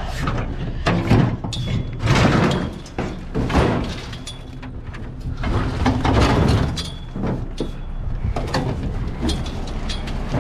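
Heavy scrap being wrestled and lifted onto a truck: repeated bangs, scrapes and thuds, with a steady low hum underneath.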